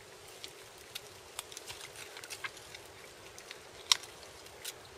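Faint wet clicks and crackles of a hunting knife cutting meat from a deer carcass, with a sharper click about four seconds in and another near the end.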